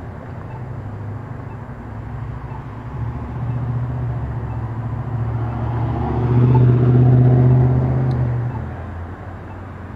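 A motor vehicle passes close by on the street. Its low engine hum builds from about three seconds in, is loudest around seven seconds, and fades away before the end.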